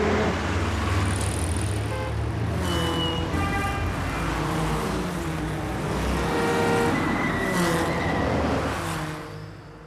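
Heavy traffic din of car engines, with car horns honking in short blasts here and there; it fades away about a second before the end.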